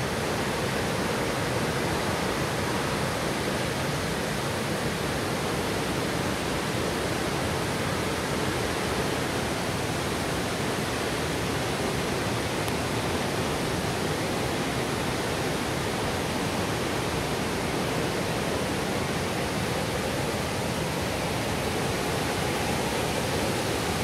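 Steady, unbroken rushing of the Velo de Novia waterfall at El Chiflón.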